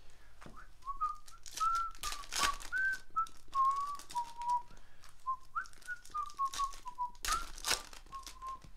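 A person whistling a tune, one wandering melody line rising and falling, while foil trading-card pack wrappers crinkle and tear in sharp bursts, the loudest about two and a half seconds in and again near the end.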